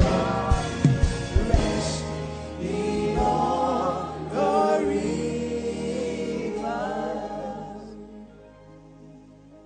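Gospel worship music: voices singing a slow melody over sustained keyboard-like accompaniment, with a few drum hits in the first two seconds, fading down near the end.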